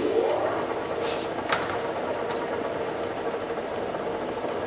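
Mazak 18" x 60" gap bed engine lathe running steadily in low range with its carriage power feed driving, a mid-pitched tone over the gear drive. One sharp click about a second and a half in.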